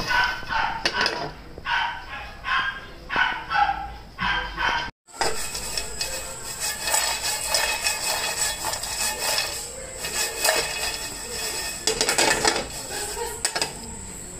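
Roasting cashew nuts being stirred in a frying pan, clattering and scraping against the pan in short spells, after an abrupt cut about five seconds in. A voice is heard in the first few seconds.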